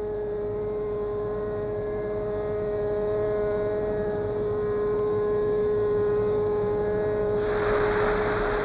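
Steady drone of factory machinery with a held tone, joined near the end by a loud, even hiss like air or spray jets.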